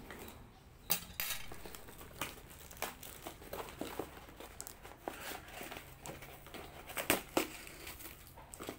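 Cardboard parcel box being opened by hand: packing tape cut with a small cutting tool, then the cardboard flaps pulled apart, giving scattered sharp clicks, snips and crinkles. The loudest clicks come about a second in and again around seven seconds in.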